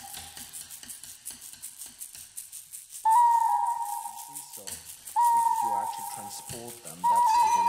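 Electronic music: quick, quiet rattling ticks, then a high held tone that cuts in abruptly three times, each lasting a second or more before falling away over lower tones sliding downward.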